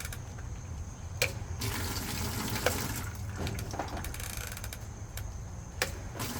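GE top-loading washing machine running, with water pouring into the tub over a steady low hum. A few sharp clicks come through, about a second in, near the middle and near the end.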